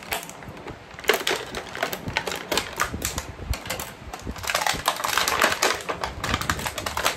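Clear plastic blister packaging crackling and crinkling as it is handled and squeezed to free the figure's parts: a rapid, irregular run of sharp clicks and crackles starting about a second in and growing denser around the middle.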